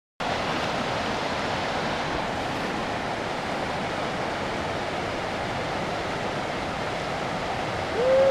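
Steady rush of a Highland salmon river's flowing water. Near the end, a short tone rises and falls once.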